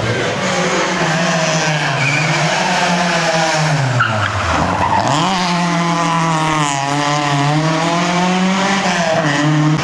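Historic rally car engine revving hard, its pitch falling steeply about four seconds in, then climbing again as it accelerates.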